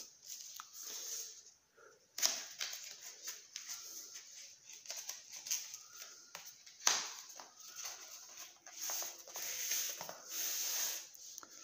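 Plastic packaging rustling and crinkling in irregular bursts as a parcel is handled and a box is slid out of it, with a couple of sharper crackles.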